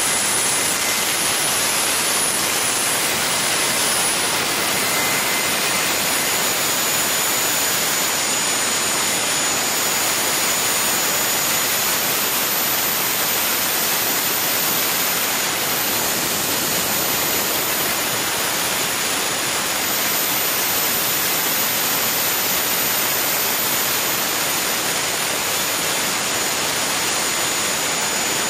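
Garrett GTCP85 gas-turbine APU running steadily: an even rushing roar with a faint thin high whine above it. It is driving its alternator with a bank of light bulbs as the load.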